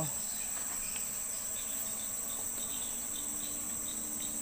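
Steady, high-pitched insect chorus, a continuous shrill drone with faint ticking in it.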